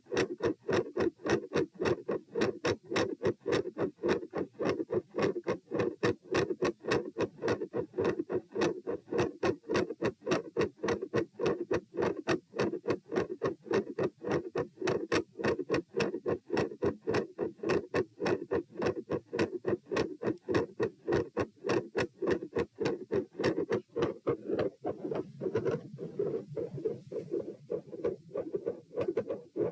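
Human heartbeat heard through a stethoscope: a fast, steady run of short thudding heart sounds, the heart with midsystolic clicks and a split second heart sound. Near the end a low rumble joins the beats.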